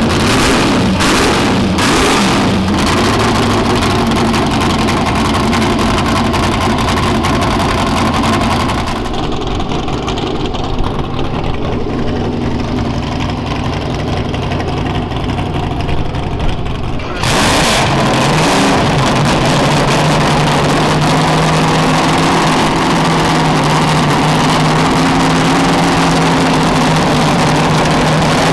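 Formula 5000 racing cars' 5-litre V8 engines running at a loud, steady idle, with a few sharp throttle blips in the first couple of seconds and another a little past halfway. The sound changes abruptly twice, as from one car to another.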